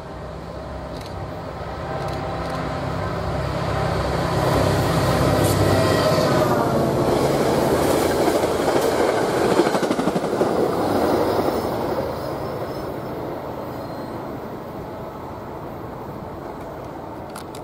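NJ Transit Atlantic City Line push-pull train of Comet coaches passing at high speed, around 79 mph. Wheels rumble and clatter on the rails, building over the first few seconds, loudest in the middle, then fading as the train moves away.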